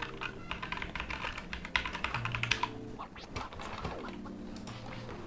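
Typing on a Digital Alliance Meca Air budget mechanical keyboard: a fast, irregular run of key clicks. Its switches have a light actuation, which the typist takes for red switches.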